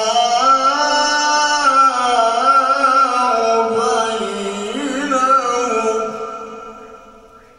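A man reciting the Quran in the melodic, drawn-out tilawa style into a handheld microphone, holding long ornamented notes that rise and fall in pitch. The phrase trails off near the end.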